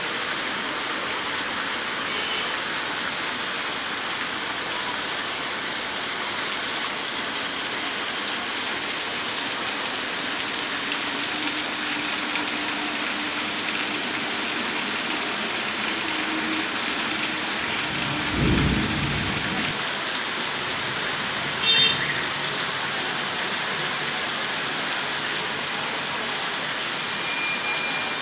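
Heavy rain pouring onto a flooded street and paving, a steady dense hiss. About 18 seconds in a brief low rumble swells and fades, and a few seconds later comes a short high-pitched ring.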